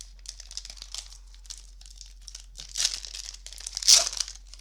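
Foil wrapper of a Magic: The Gathering booster pack crinkling as it is handled, with two louder rips about three and four seconds in as the pack is torn open.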